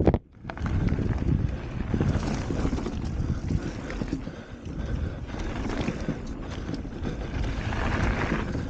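Wind buffeting the microphone of a camera on a 2015 Norco Range enduro mountain bike, over the rumble of its tyres on a dry dirt trail and the rattle and knocks of the bike over bumps during a fast descent. Just after the start the sound cuts out sharply for a moment, then returns.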